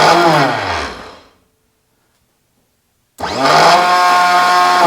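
Norton Commando Mk3 electric starter motor spinning free on the bench off a battery, twice: a short run that whines up and winds down, then, about three seconds in, a second run that spins up to a steady whine.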